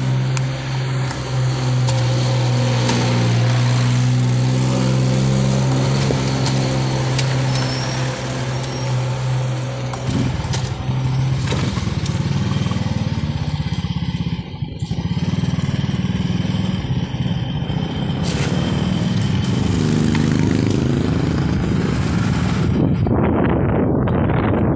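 Motorcycle engine idling with an even hum, then pulling away about ten seconds in and running rougher as it rides, its pitch rising and falling near the end.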